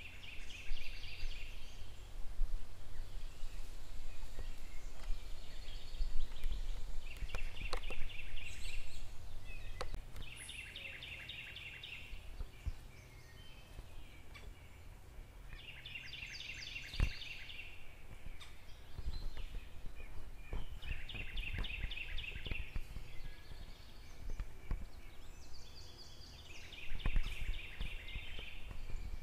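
Outdoor ambience: a rapid high trill of about a second repeats every few seconds over a steady low rumble, with a few sharp knocks here and there.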